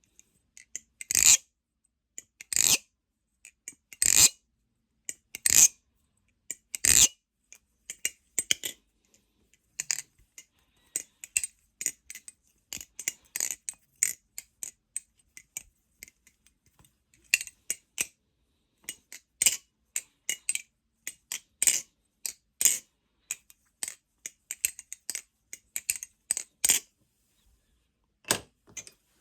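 Balisong (butterfly knife) being flipped, its handles and blade clacking metal on metal. First come five loud single clacks about a second and a half apart. Then quicker runs of lighter clicks and rattles follow through the middle, and a loud clack comes near the end.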